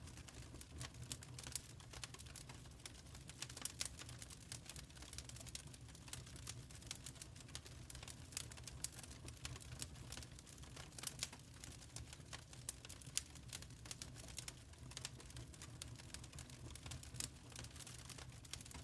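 Wood fire burning in a fireplace, logs crackling with irregular sharp pops and snaps over a low steady rumble of the flames.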